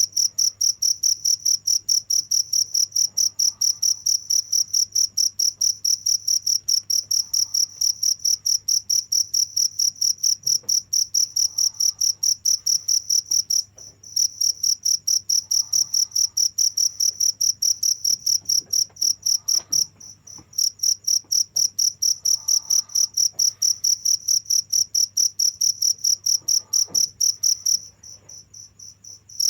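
A cricket chirping: a high-pitched, fast and even pulsing trill that stops briefly twice and pauses again near the end.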